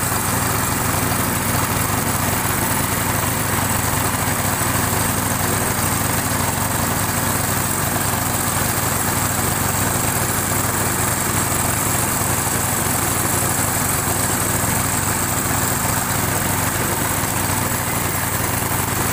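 Honda engine of a wooden river boat running steadily under way, an even, unbroken drone with a low hum.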